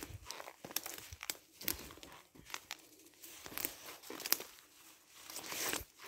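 Footsteps crunching and rustling through dry fallen leaves and twigs on a forest floor, with many irregular small crackles and a longer rustle near the end.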